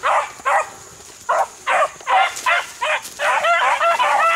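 Beagle hounds baying: a run of short pitched barks, about two or three a second, that turns into a denser, continuous stream of drawn-out bays about three seconds in.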